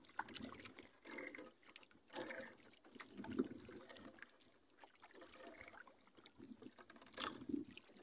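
Faint water lapping and splashing against a small outrigger boat, with irregular knocks and rubbing as a heavy nylon longline is hauled in hand over hand.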